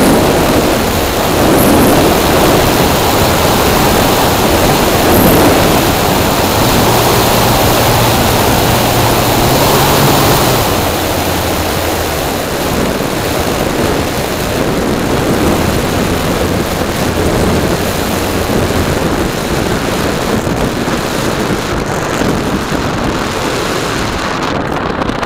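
Steady rushing wind and airflow noise on the onboard microphone of an electric-powered RC Piper PA-18 model in a gliding descent, with a low steady propeller/motor hum through the middle. The noise eases as the plane comes down onto the grass near the end.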